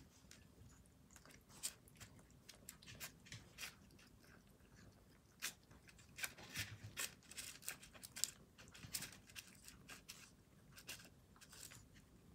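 Two cats chewing and crunching their food: many small, irregular crunches, faint and sparse at first and coming thicker from about five seconds in.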